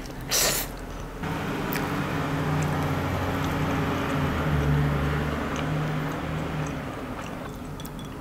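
A short, loud slurp of spaghetti near the start, with light clicks of chewing and utensils. Under them a steady low mechanical hum swells over several seconds and fades again.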